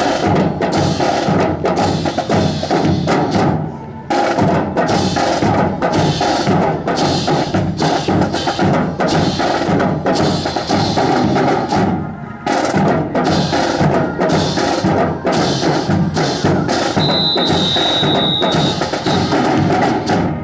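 Marching band music with a strong, busy drum beat, playing continuously and stopping at the very end.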